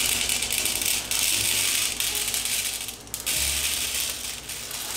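Whole roasted coffee beans pouring from a bag into a clear tray: a dense rattling clatter of many small beans, which eases for a moment about three seconds in and then carries on.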